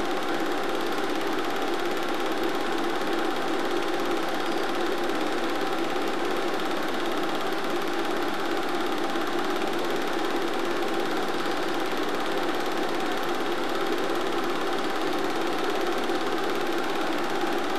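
Film projector running: a steady mechanical whirr with a constant hum, even in level and pitch throughout.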